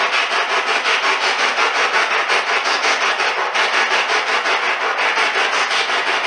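Spirit box sweeping through radio frequencies: a steady hiss of static chopped into rapid pulses several times a second.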